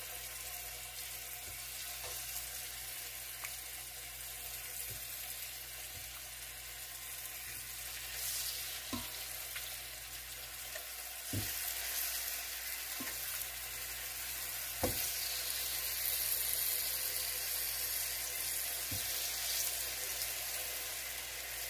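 Raw chicken pieces sizzling in hot oil in a frying pan, a steady hiss that grows a little louder in the second half, with a few light clicks as pieces are laid in.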